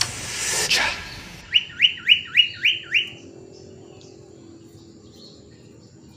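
Caged sirtu (pied triller) calling: a quick run of six rising whistled notes, about four a second, coming as the music fades.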